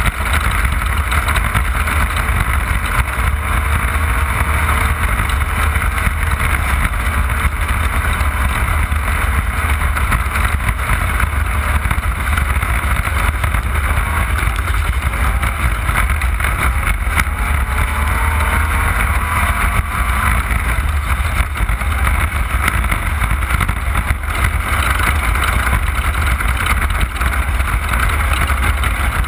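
Off-road race car running at speed, heard from an onboard camera: a loud, steady low rumble of engine and drivetrain with a constant hiss of wind and tyre noise over it.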